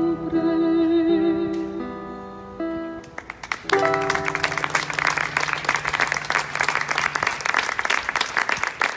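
The last bars of a song: a woman's long held sung note over a strummed acoustic guitar, fading out. About three seconds in the audience breaks into applause, and a final guitar chord rings under the clapping for a few seconds.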